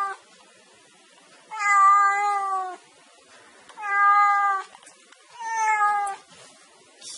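Domestic cat meowing while being scratched on the head: the end of one meow right at the start, then three drawn-out meows of about a second each, evenly spaced about two seconds apart, each at a fairly steady pitch.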